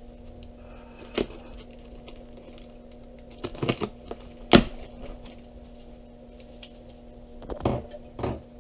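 A folding knife slitting packing tape on a cardboard box, then the box flaps being pulled open: a few separate sharp scrapes and knocks, the loudest about halfway through, with a cluster of them near the end as the flaps open. A steady low hum runs underneath.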